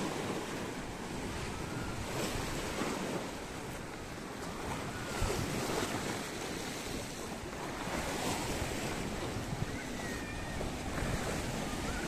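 Sea waves washing onto the shore in a steady wash with a few swelling surges, with wind rumbling on the microphone.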